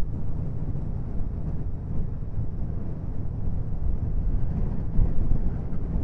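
Wind buffeting the microphone in gusts over the running of a 2014 Honda Valkyrie's flat-six engine while cruising.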